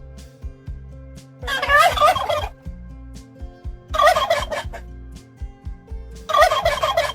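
Turkey gobbling three times, each a rapid warbling gobble of about a second, spaced a couple of seconds apart, with soft background music underneath.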